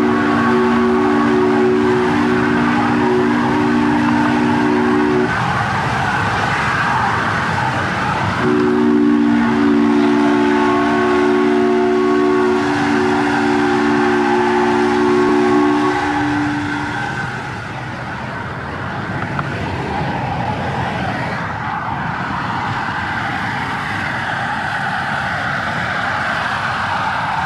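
Chime whistle of a miniature Union Pacific Big Boy steam locomotive blowing a steady three-note chord in two long blasts, about five seconds and then about eight seconds long. Steady steam and running noise from the locomotive continues throughout.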